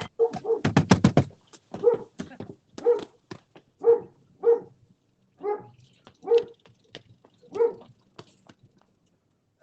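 A dog barking: a quick run of barks in the first second or so, then single barks about once a second, stopping near the end.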